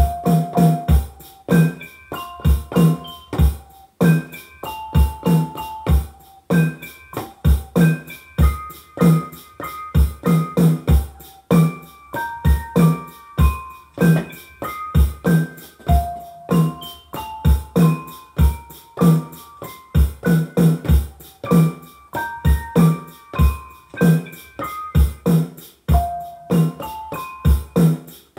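Hip-hop instrumental beat played on a Native Instruments Maschine Mikro Mk1 pad controller: steady drum hits under a melody of piano-like keyboard notes.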